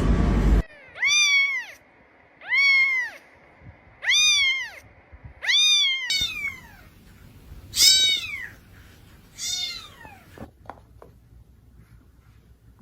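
Domestic cat meowing: six drawn-out meows about a second and a half apart, each rising then falling in pitch. A loud rush of noise cuts off half a second in, and a few faint clicks follow the last meow.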